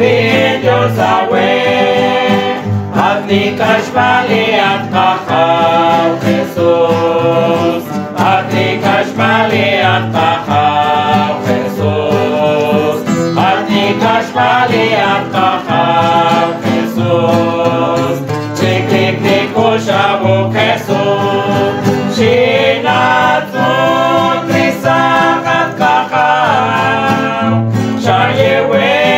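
Men's and women's voices singing a song in Poqomchi' together, accompanied by several strummed acoustic guitars.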